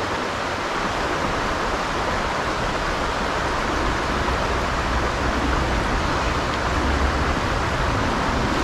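Shallow, stony creek flowing steadily, an even rush of water with no breaks.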